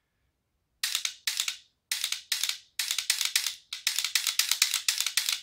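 Handling noise from hands on a rifle: a rapid, irregular series of short, hissy scraping rubs. It starts about a second in and grows denser toward the end.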